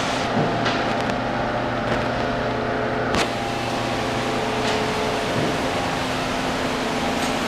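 Steady machine hum holding several even tones, with a few light clicks, the sharpest about three seconds in.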